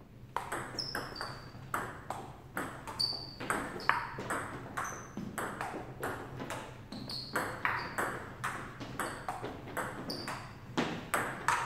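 A table tennis rally: the celluloid-type plastic ball clicks off rubber-faced paddles and bounces on the table in quick alternation, about two hits a second. Some bounces leave a short high ring. It starts after a brief quiet moment and keeps going without a break.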